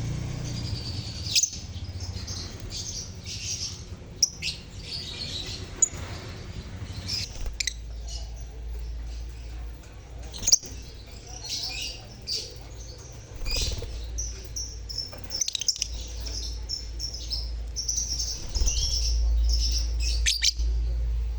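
A colony of lovebirds (Agapornis) chirping together: many short, shrill, overlapping chirps with no pause, over a steady low rumble.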